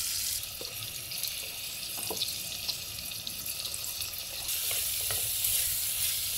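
Ground pork and oil sizzling in an enamelled cast-iron pot, with a few light knocks. The sizzle gets louder about four and a half seconds in, as chopped onion goes into the hot oil and is stirred.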